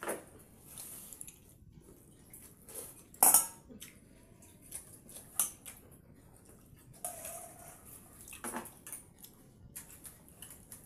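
Stainless steel bowls clinking and scraping as hands mix and scoop watered rice, with scattered sharp knocks; the loudest is about three seconds in.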